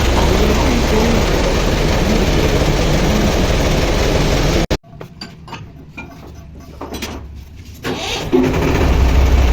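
Lathe running with a loud, steady hum and machining noise. About halfway through it cuts out suddenly, leaving a quieter stretch with a few scattered knocks, and comes back to full level near the end.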